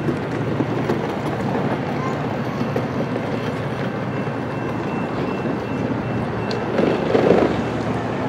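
A Metra commuter train, hauled by an F59PHI diesel locomotive, rolling away down the track: a steady rumble of wheels on rail and engine fading into the distance. There is a brief swell in the noise about seven seconds in.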